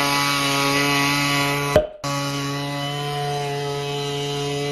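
Small gas engine of a handheld ice auger running steady at high revs while drilling through lake ice. It breaks off briefly about two seconds in and then carries on at the same pitch.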